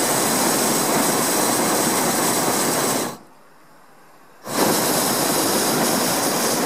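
Hot-air balloon's propane burner firing in two blasts of loud steady hiss, about three seconds and two and a half seconds long, with a pause of a second and a half between. The pilot is heating the envelope to hold height and stretch the flight toward the landing field.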